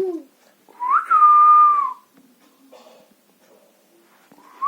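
Pet parrot whistling: one loud whistle that rises quickly, holds steady for about a second and drops at the end, with a second, similar whistle starting near the end.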